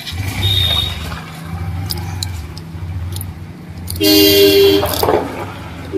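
A motor vehicle's engine running close by, then a vehicle horn honking loudly for nearly a second about four seconds in, with a short second toot at the very end.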